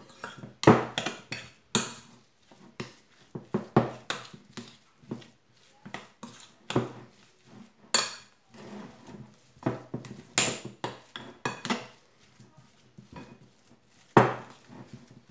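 Metal spoon knocking and scraping against a glass mixing bowl while stirring a thick mashed potato mixture, in irregular clinks with a few louder knocks.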